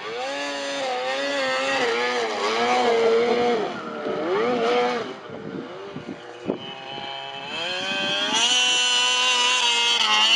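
Snowmobile engines revving, their pitch rising and falling for the first few seconds. After a short lull with a knock, one snowmobile engine comes in louder and held at high revs, rising slightly as it climbs.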